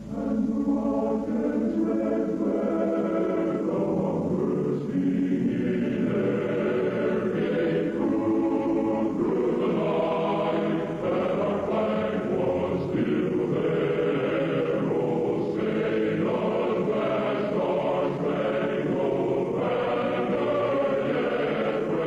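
A choir singing a slow national anthem, sustained and steady, after a brief pause right at the start.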